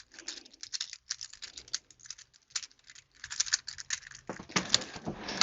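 Plastic infinity cube fidget toy being flipped over and over in the hands: a rapid, irregular clicking and clacking that gets louder near the end.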